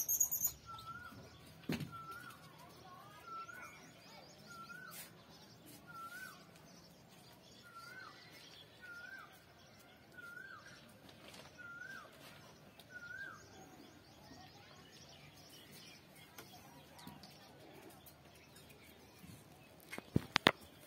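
A bird calling a short rising-and-falling note about once a second, stopping about two-thirds of the way through. Two sharp knocks come near the end.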